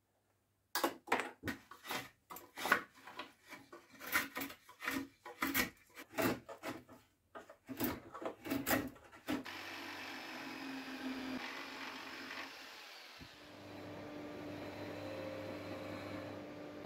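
Hand tool working wood in repeated strokes, about two to three a second. About nine seconds in, a small power tool starts running steadily with a hum, dipping briefly and picking up again about four seconds later.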